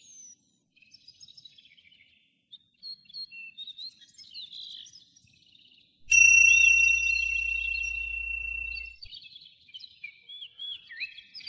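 Small birds chirping. About six seconds in, a bell is struck once and rings on a clear high tone with a low hum beneath it, fading over about three seconds while the chirping carries on.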